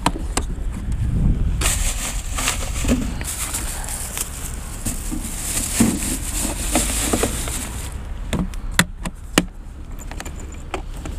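Plastic grocery bag rustling and crinkling as it is handled and stuffed into a motorcycle's hard plastic saddlebag. A few sharp clicks follow near the end as the saddlebag lid is pressed shut and latched.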